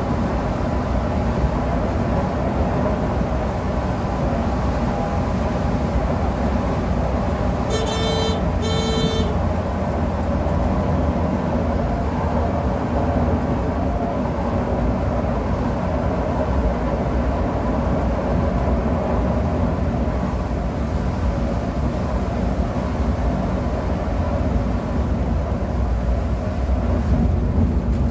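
Volvo B11R coach heard from its cab while cruising at highway speed: steady engine, tyre and wind noise, the tyres running on a wet road. About a third of the way in, a horn sounds two short blasts in quick succession.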